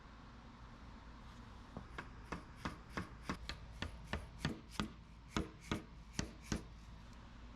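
A run of about fifteen sharp knocks, roughly three a second, starting about two seconds in and stopping shortly before the end.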